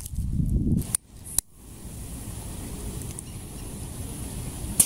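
Low wind rumble on the microphone, broken by two brief clicks about a second in, with a faint hiss as the fuse of a twine-wrapped firework ball burns.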